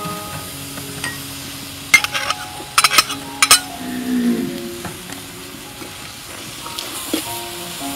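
Shallots, dried shrimp and minced garlic sizzling in hot oil in a metal wok, with a few sharp metallic clinks against the wok between about two and four seconds in, over background music.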